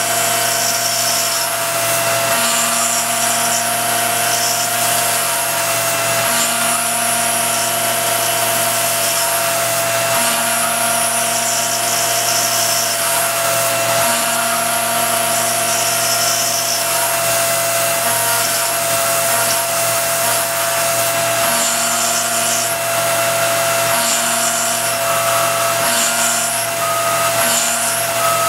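CNC milling machine spindle running at about 6800 RPM with a 1/8" cutter milling the front lightening panels of a 1911 slide: a steady spindle whine, with a higher cutting hiss that cuts in and out every one to three seconds as the tool engages and leaves the metal.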